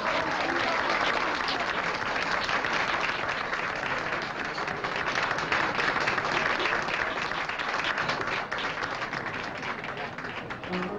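Nightclub audience applauding: many hands clapping steadily, thinning a little near the end.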